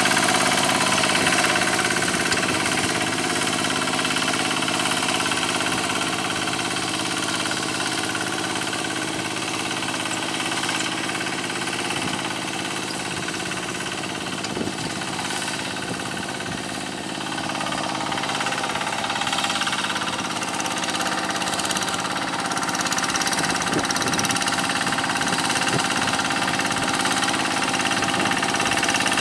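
Single-cylinder diesel engine of a two-wheel hand tractor running steadily under load as it pulls through a flooded rice paddy. It grows a little quieter midway and louder again near the end.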